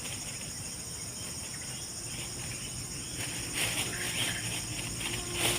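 Steady, high-pitched chorus of insects buzzing and shrilling without pause, with a few brief rustles in the second half.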